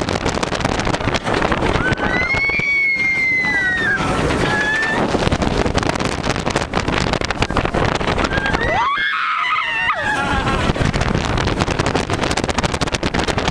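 Wind rushing hard over the microphone and a steel roller coaster train running along its track at speed, with riders screaming about two seconds in and again around nine seconds.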